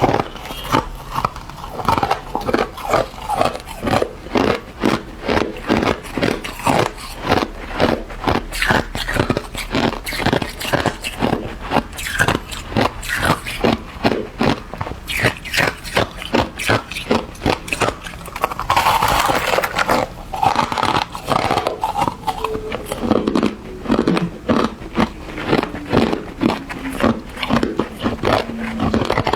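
Hard ice being bitten and crunched over and over, about two to three crunches a second.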